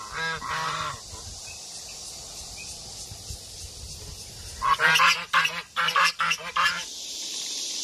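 Two Chinese geese, one brown and one white, honking: a double honk at the start, then a quick run of about six honks in the last few seconds.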